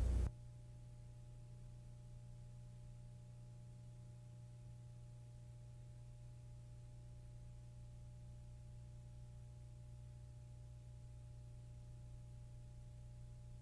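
Faint, steady low electrical hum of the recording, with no other sound: the pencil drawing guidelines through the lettering guide is not heard.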